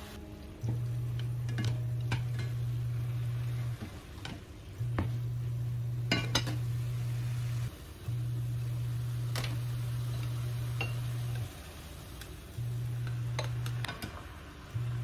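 Stir-frying in a ceramic non-stick pan: chopsticks and a slotted spatula toss sliced beef and vegetables, with scattered clacks of the utensils against the pan. Under it a low hum cuts in and out every few seconds.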